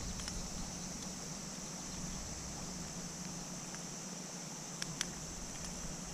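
Quiet outdoor background with a steady high-pitched hiss and a faint low hum, broken by two soft clicks about five seconds in.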